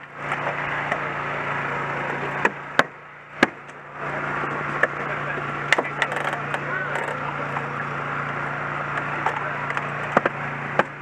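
Hydraulic rescue tools cutting into a car during a vehicle extrication, over the steady drone of the tool's power unit. Several sharp cracks and snaps come at uneven times as the metal gives.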